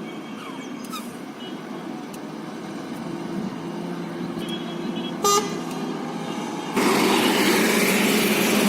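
Road traffic noise with a single short vehicle horn toot about five seconds in. Near the end a much louder, steady noise with a low hum sets in suddenly.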